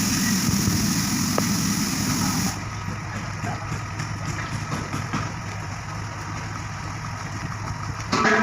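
Heavy truck engine running steadily at a concrete pour, with a loud hiss over it for the first two and a half seconds and a short pitched sound near the end.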